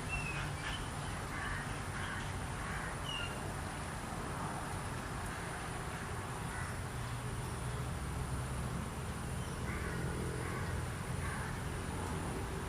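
Outdoor field recording of birds calling: a few short chirping calls near the start and again about ten seconds in, over a steady low rumble.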